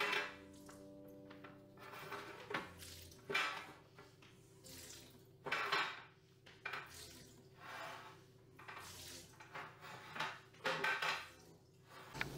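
Small hand squeegee dragged across a wet granite countertop in a series of short scraping strokes, with knocks and scrapes as the water is pushed off the edge into a metal tray.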